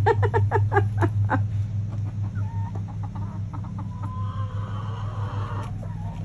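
Hens clucking, with a quick run of short clucks at the start that thins out into a few softer calls. A steady low hum runs underneath.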